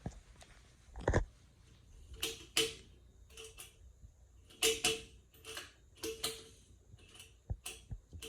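Irregular series of short mechanical clicks and light rattles, some in quick pairs, each with a faint ring, and a few dull thumps between them.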